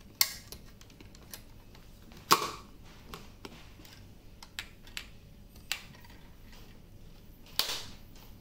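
Batteries and the plastic battery cap of a handheld megaphone being handled: a series of sharp clicks and knocks as the cells are seated and the cap is pressed shut and its metal clasp closed. The loudest clicks come just after the start, about two seconds in, and near the end.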